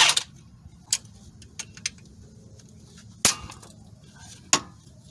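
Scattered sharp metal clinks and knocks of hand tools and parts against the front suspension and CV axle, about five or six separate strikes, the loudest a little past three seconds in.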